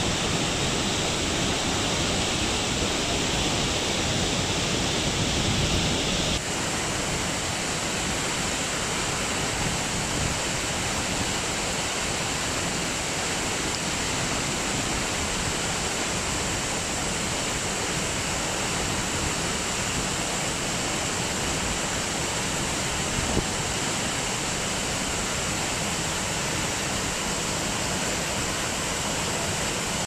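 A 300-foot waterfall plunging into its pool: a steady, even rush of falling water, its tone shifting slightly about six seconds in.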